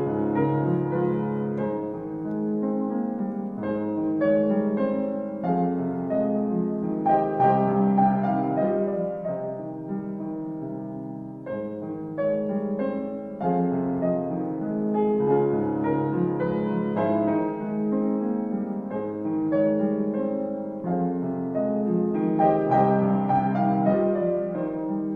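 Solo piano playing a gentle, slow piece: sustained chords under a melody line, with no break.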